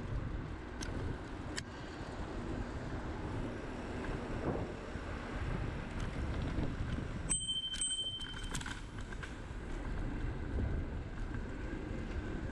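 Bicycle ridden along an asphalt path: tyre rumble and wind buffeting the microphone, with a couple of sharp clicks early on. About seven seconds in the rumble drops out for about a second while a clear high tone rings briefly.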